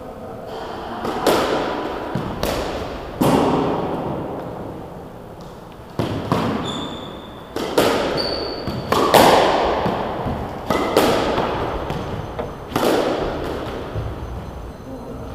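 Squash rally: the ball cracking off rackets and smacking the front and side walls, about a dozen sharp hits, each ringing out in the court's echo. A few brief high squeaks, from shoes on the wooden floor, come in the middle.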